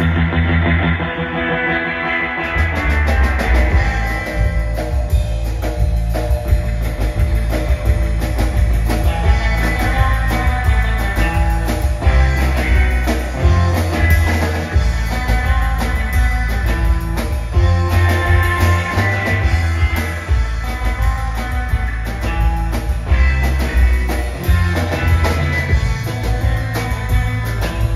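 Live instrumental surf rock band: twangy electric guitar lead over upright double bass and a drum kit. The guitar leads in on its own for the first couple of seconds before the drums and bass join.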